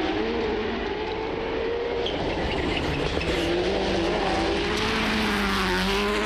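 Rally car engine running hard, revs rising and falling and climbing in the second half, over a steady hiss of tyres on gravel.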